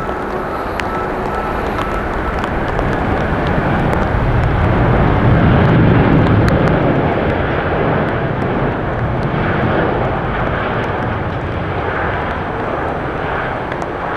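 Airbus A350-941 airliner's Rolls-Royce Trent XWB engines running as it rolls out after landing on a wet runway. A dense, steady jet rush swells to its loudest about five seconds in, then eases.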